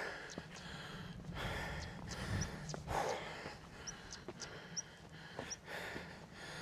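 A hiker breathing hard and heavily while climbing a steep hill path, with a regular tick of footsteps.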